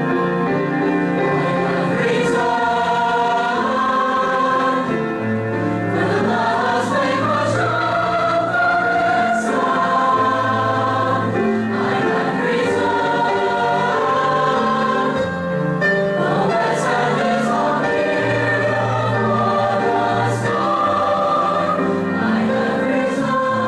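A choir singing a choral song in sustained, shifting chords, played back from a Scotch Scream'R Type I normal-bias cassette tape.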